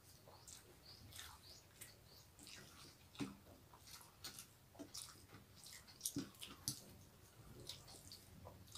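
Faint eating sounds: wet chewing and the squish of hands mixing rice with curry on steel plates, in irregular soft clicks and smacks, a few louder ones about three seconds in and again around six to seven seconds.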